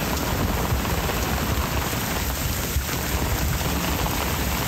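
Storm downpour: rain coming down hard in a steady hiss, with a low rumble of wind gusting against the microphone.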